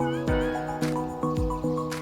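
Background music: held pitched notes over a steady beat of about two thumps a second.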